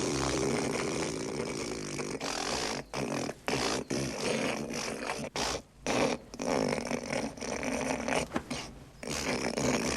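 A man noisily hawking up phlegm from the back of his throat, gathering a wad of spit. It is a long, rasping hock that starts abruptly, broken by short pauses after about three seconds.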